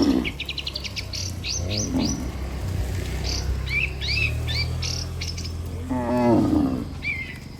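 Cattle mooing: a long, low moo held through most of the clip, rising into a louder call about six seconds in. Small birds chirp over it.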